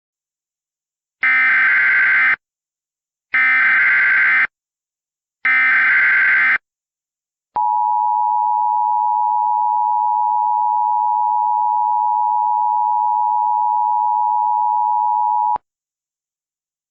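Emergency Alert System tones opening a new alert. First come three bursts of warbling digital SAME header data, about a second each. Then the EAS two-tone attention signal holds steady for about eight seconds and cuts off sharply.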